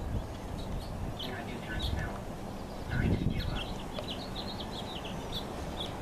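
Small birds chirping in short, high notes, scattered at first, then a quick run of chirps about four seconds in, over a low steady rumble.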